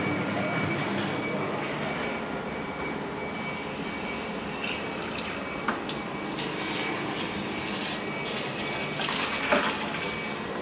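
Toilet flush water rushing in a steady stream, with a higher hiss joining about three seconds in; near the end a sitting toilet's bowl is flushing.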